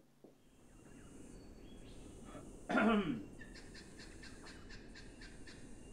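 An elderly man gives one short grunt of effort, dropping in pitch, about three seconds in, as he heaves himself up to sit on a bed. Soft rustling of the bedding runs around it.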